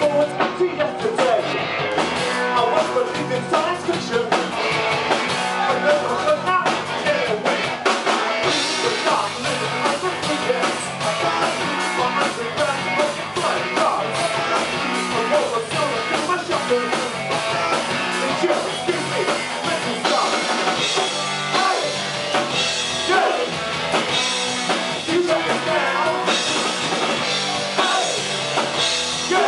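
Live rock band playing: electric guitars and a drum kit with a singer.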